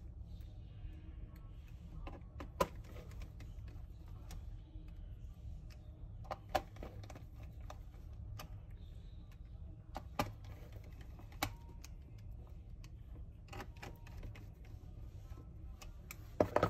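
Sparse sharp clicks and light taps of a hand screwdriver tightening the screws in a laptop's plastic bottom cover, one every few seconds with two close together near the end, over a faint low hum.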